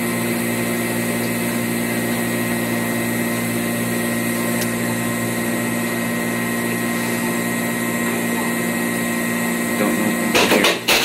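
Self-contained ice machine running in its harvest cycle: a steady mechanical hum with a thin constant high whine. Louder clattering and rustling come in near the end.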